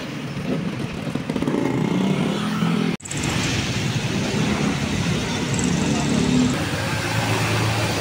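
Street traffic noise with a motor vehicle's engine running nearby, swelling and fading twice. The sound breaks off for an instant about three seconds in.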